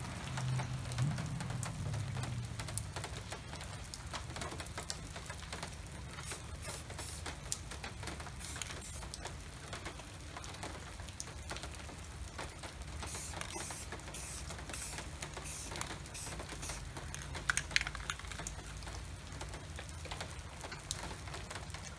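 Light rain or water dripping on wet pavement: scattered small irregular ticks of drops over a steady outdoor hiss. A low hum fades out in the first couple of seconds.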